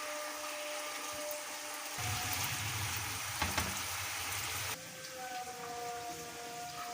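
Food sizzling in hot oil in a pan, a steady crackling hiss that changes abruptly twice as the clips cut, with faint background music.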